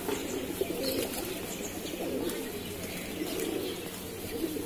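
Feral pigeons cooing: many low, wavering coos overlapping without a break.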